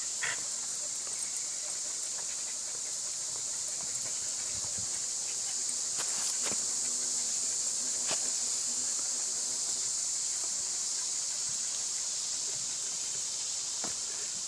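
Steady, high-pitched hiss of a woodland insect chorus, with a few faint taps of footsteps on a log footbridge a little past the middle and near the end.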